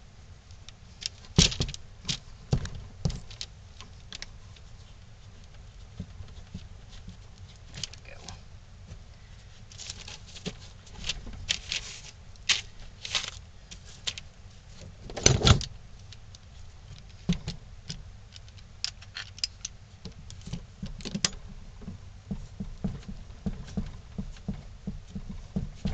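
Bar clamps being fitted and tightened on glued wooden blocks: scattered clicks, knocks and small metallic clatter, with one louder knock about halfway through and a run of quick clicks near the end.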